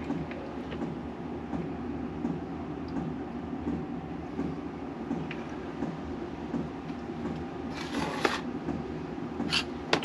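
Hands working metal engine parts while a motorcycle gearbox is taken off its crankcase: a few short metallic scrapes and clicks about eight and nine and a half seconds in, over a steady low hum.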